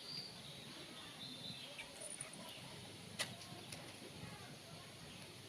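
Faint high chirps from a small caged bird, with a single sharp click about three seconds in.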